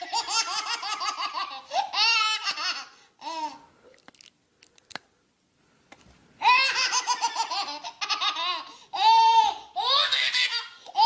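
A baby belly-laughing in two long fits of rapid, high-pitched giggles, the first at the start and the second beginning about six and a half seconds in, with a short quiet pause between.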